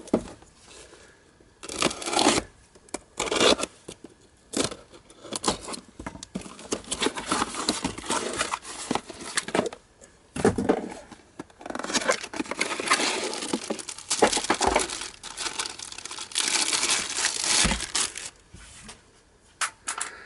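Parcel being unwrapped by hand: tape and paper wrapping torn and crinkled off, then a cardboard box opened, in irregular bursts of tearing and rustling.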